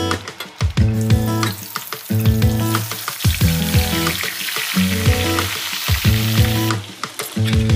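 Hot oil sizzling steadily, as food fries, from about two seconds in until near the end, over background guitar music.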